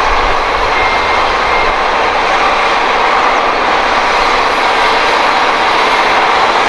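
Large New Holland farm tractor's engine running steadily under load as it pulls a tillage implement through a field: a loud, even engine noise.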